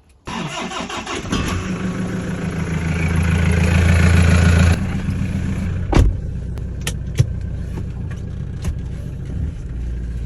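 Toyota Hilux engine cranked on the starter and catching, running high for a few seconds, then dropping back sharply to a steady idle. There is a sharp knock about six seconds in.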